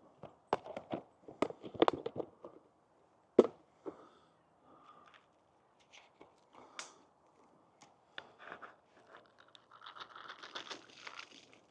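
Bird feeders being filled by hand: rustling and crinkling of feed bags with scattered clicks and knocks from the feeders, a sharp knock about three and a half seconds in, and a denser rustle near the end.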